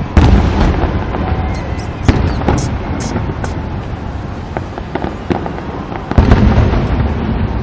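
Fireworks display: three heavy booms of aerial shells bursting, at the start, about two seconds in and about six seconds in, with crackling and small pops between them.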